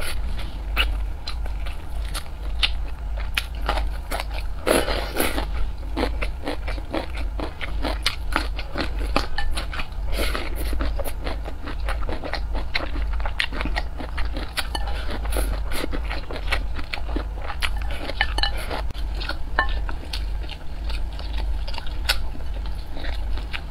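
Close-miked eating sounds: a person chewing mouthfuls of steamed rice with many short wet smacks and clicks, over a low steady hum.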